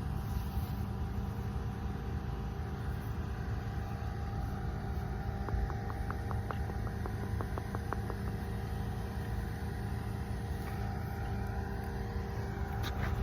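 Steady low hum of a running motor, with a quick run of light ticks about halfway through.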